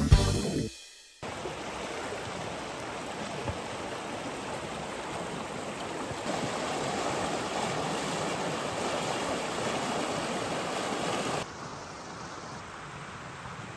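Steady rush of flowing creek water, after a music track ends in the first second. The water noise gets louder about six seconds in and drops back about eleven seconds in.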